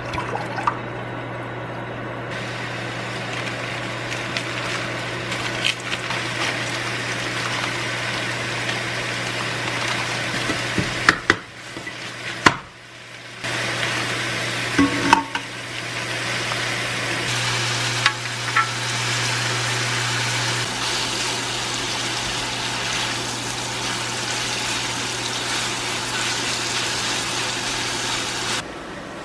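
Food sizzling as it fries in a pan, over a steady low hum, with a few sharp clicks here and there. The sizzle drops away briefly about eleven to thirteen seconds in.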